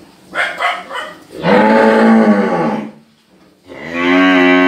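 Cattle mooing: a few short calls, then two long, loud moos, each arching slightly up and then down in pitch. The second moo begins near the end.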